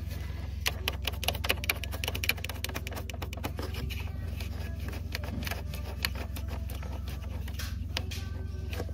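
Rapid plastic clicking and rattling from fingers pressing on fuses and a clip-in cover in a Jeep Grand Cherokee's TIPM fuse box. The clicks come thick and fast for the first couple of seconds, then turn scattered.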